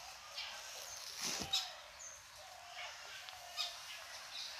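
Faint outdoor ambience with birds chirping on and off, and one brief louder sound about a second and a half in.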